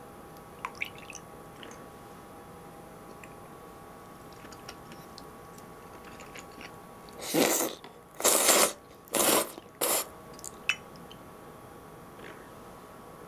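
Udon noodles being slurped in four loud bursts in quick succession about halfway through, with soft mouth clicks of eating before and after.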